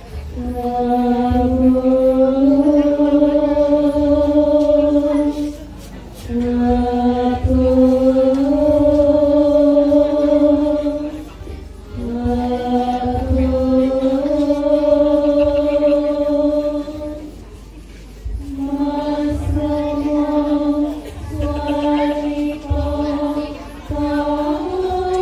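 Javanese vocal chant accompanying a wayang orang performance: long held sung phrases of several seconds each, each stepping up slightly in pitch, separated by short pauses, with low thuds underneath.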